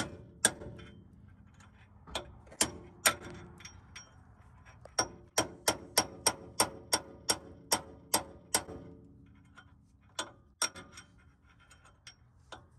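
Steel chisel struck with a hammer to drive a bearing race out of a Toyota Land Cruiser 80 Series front steering knuckle: sharp metallic taps with a brief ring. A few come singly at first, then a steady run of about three taps a second from about five seconds in, and a few more near the end.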